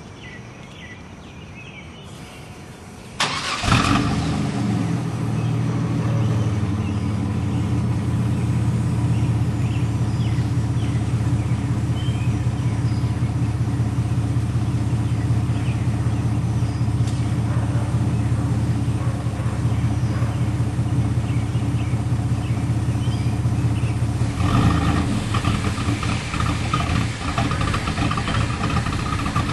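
A 2000 GMC Sonoma's 4.3-litre V6, with no catalytic converter and a Spintech Prostreet muffler on dual tailpipes, is started about three seconds in: it catches with a brief surge, then settles into a steady idle. Near the end the idle note changes and becomes more uneven.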